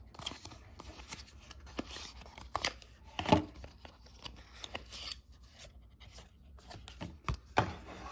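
Apple AirTag's paper-and-card box being opened and its inner card sleeves pulled out by hand: scattered rustles, scrapes and sharp clicks of paperboard. The loudest clicks come about three seconds in and again near the end.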